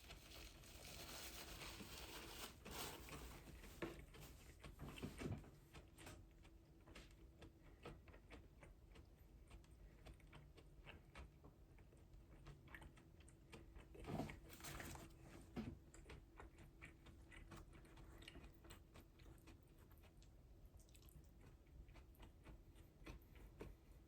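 Faint close-up chewing and munching: many small crunches and wet mouth clicks, with a few louder bites now and then.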